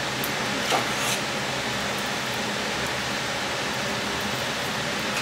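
Steady even kitchen hiss, with two light clinks of a metal fork against a plate or pot about a second in as mashed potatoes are served.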